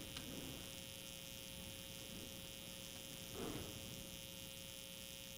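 Faint steady electrical hum with a thin high tone and hiss: room tone between remarks.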